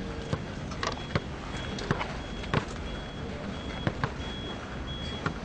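Basketball being dribbled on hard ground: about six sharp bounces at an uneven pace, over steady background noise.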